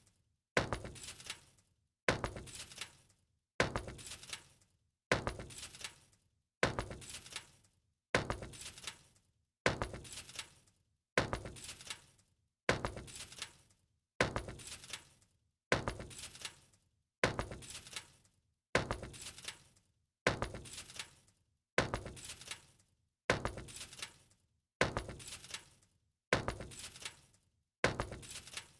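A short crash-like sound with a ringing, jangling tail, repeated in an even loop about every one and a half seconds, each one dying away into a brief silence before the next.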